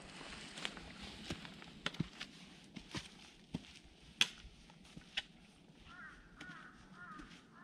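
Footsteps in dry fallen leaves with trekking-pole tips clicking on stone steps, sharp irregular clicks every half second or so. Near the end a bird chirps repeatedly in short arched notes.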